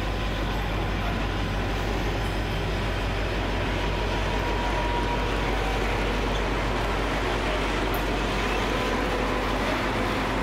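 A pair of diesel freight locomotives hauling a loaded grain train: a steady, unbroken engine rumble mixed with the rolling noise of the wagons.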